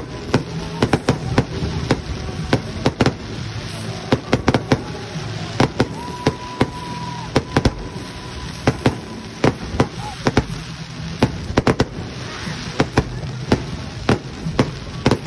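Aerial fireworks display: a rapid, irregular run of sharp cracks and pops from bursting shells, several a second, over a steady rumble with voices in the background. A short steady whistle sounds about six seconds in.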